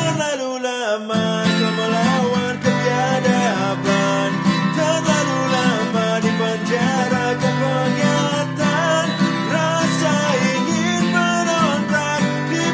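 A man singing in Indonesian while strumming an acoustic guitar. The low guitar chords break off briefly just after the start, then carry on under the voice.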